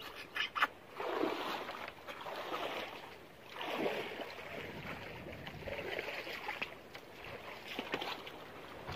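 People sucking cooked river snails (bitanga and suso) out of their shells: a run of noisy slurps, each a second or two long, with a few light clicks near the start.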